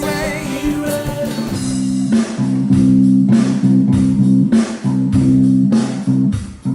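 Band music with a prominent bass guitar and drum hits. About a second and a half in, it changes abruptly to a different recording dominated by low, sustained bass notes and regularly spaced drum strikes.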